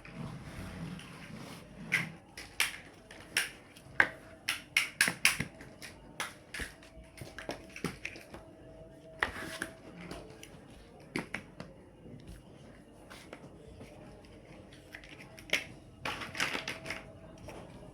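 Plastic building blocks clicking and clacking as they are handled and snapped together. The sharp clicks come irregularly, in a quick run about two to five seconds in and again near the end.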